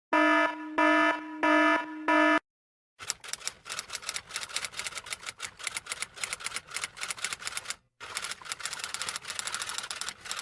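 Four short electronic tones, the third slightly longer, then rapid, irregular typing clicks from about three seconds in, pausing briefly near the eight-second mark before starting again.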